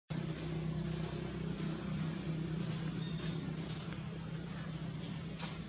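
A steady low motor hum, with a few short high bird chirps about four and five seconds in.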